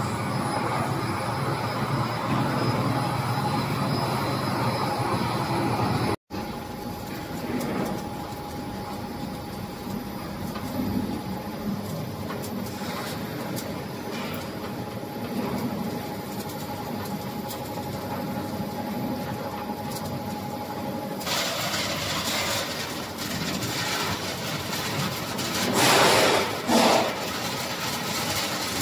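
Pet food production line machinery running: a steady mechanical hum with a constant whine. It drops out briefly about six seconds in. From about two-thirds through it turns brighter and noisier, with two louder surges near the end.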